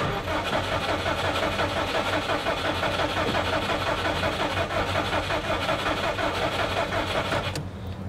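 JDM EJ20 turbo flat-four in a Subaru WRX being cranked over by its starter, heard from inside the cabin: a steady, even rhythm that never catches and stops about seven and a half seconds in. The engine won't fire because its plugs are getting no spark.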